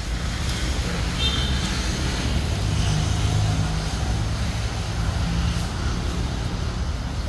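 Low rumble of a motor vehicle engine running, swelling around the middle, with a brief high chirp about a second in.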